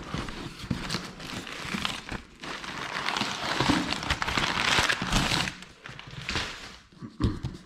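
Crumpled brown kraft packing paper rustling and crinkling as it is pulled out of a cardboard shipping box, loudest from about three to five and a half seconds in.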